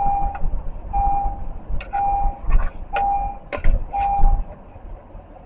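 Vehicle reverse warning beeps: a steady electronic beep about once a second, stopping a little past four seconds in, with a few sharp clicks and knocks among them.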